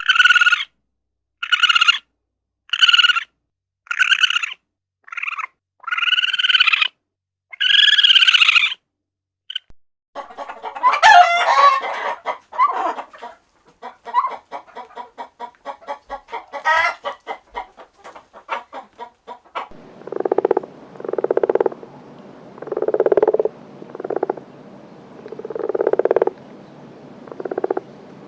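Animal calls in three stretches. First comes a row of about eight short, high calls about a second apart. Next is a busier jumble of calls and clicks. Last is a slower series of lower, croaking calls.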